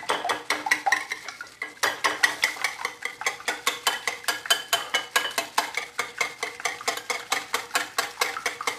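Wire whisk beating raw eggs in a bowl, its wires clicking against the bowl in a fast, even rhythm of about six strokes a second.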